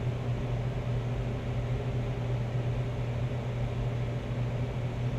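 Steady low hum with a hiss over it, from a motor or fan running.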